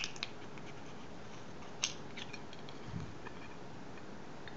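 Tiny camera screws clicking against a small aluminium tin as fingers pick one out: a handful of light, sharp metallic clicks, the sharpest at the start and just under two seconds in, over a steady low hiss.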